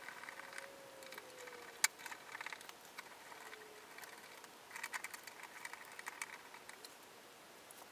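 Faint spells of rapid clicking and rattling as plastic pressure-washer parts are handled and fitted together, with one sharp click just under two seconds in.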